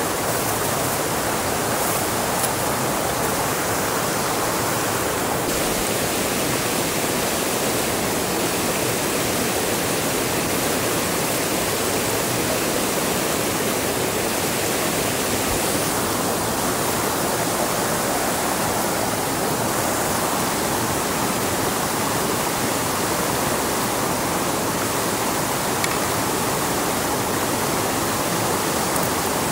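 Steady rushing of water, an even hiss-like wash with no pauses or changes.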